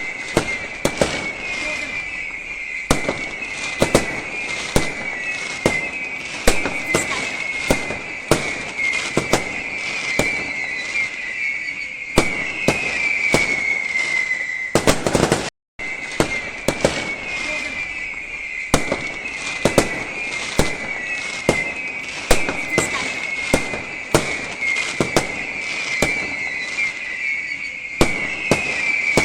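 New Year fireworks display: a rapid, irregular string of bangs and crackles, over a run of high whistles that each fall in pitch. The sound cuts out for a moment about halfway through.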